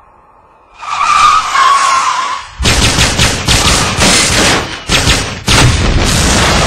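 Film action sound effects: a tyre screech with a slightly falling squeal starts about a second in. From about two and a half seconds there is rapid gunfire mixed with loud car and tyre noise.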